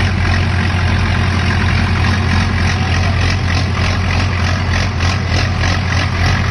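Tractor diesel engines running steadily under heavy load as the two tractors pull against each other in a tug-of-war, rear tyres spinning against the ground. A fast regular pulsing joins the steady engine sound about halfway through.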